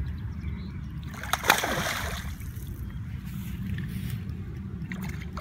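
Water splashing as a hooked tench is drawn into the landing net, with one loud splash about a second and a half in, over a steady low rumble.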